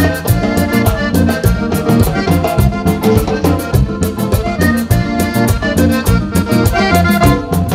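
Live Panamanian música típica: a button accordion leads a band with electric guitar, low bass notes and a steady, quick percussion beat.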